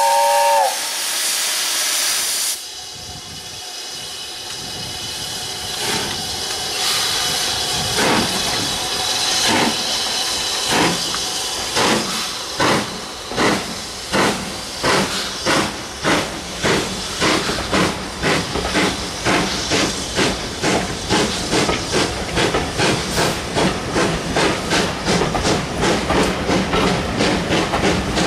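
BR Standard Class 5 4-6-0 steam locomotive No. 73082 starting a train. A steam whistle ends within the first second, and a loud hiss of steam cuts off about two and a half seconds in. Then the exhaust chuffs begin, slow at first and quickening to about three beats a second as the train gathers speed.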